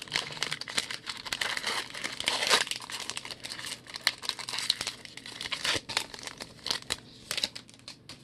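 Foil wrapper of a 2020 Donruss baseball card pack crinkling as it is torn open by hand. The crackle is densest in the first few seconds and thins out near the end.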